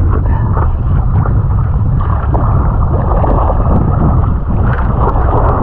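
Choppy water sloshing and splashing against a paddleboard and over a deck-mounted camera, with heavy wind buffeting on the microphone. The sound is loud and muffled, with little high sound in it.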